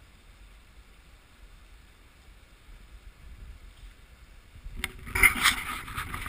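Faint low wind rumble. About five seconds in it gives way to loud rubbing, scraping and sharp knocks of the camera being handled and moved.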